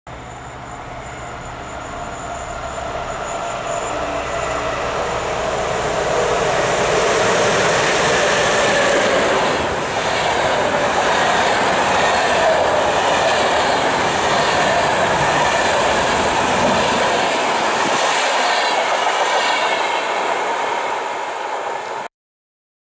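Express passenger train, an EU07A electric locomotive hauling PKP Intercity coaches, passing through a station, with its wheels running on the rails. It grows louder over the first several seconds, then holds steady as the coaches go by. The sound cuts off suddenly near the end.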